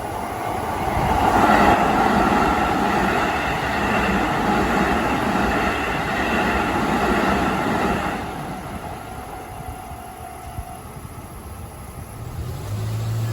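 A train passing a level crossing at speed: the rush of wheels and rails builds about a second in, stays loud for about seven seconds, then fades. A steady warning tone from the crossing runs on beneath it and stops a little before the end, and a low engine hum comes in near the end.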